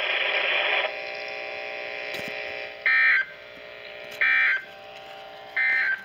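Weather radio speaker playing the SAME end-of-message data signal that closes a NOAA Weather Radio test: three short, loud warbling data bursts about a second and a half apart. A brief rush of noise comes before them.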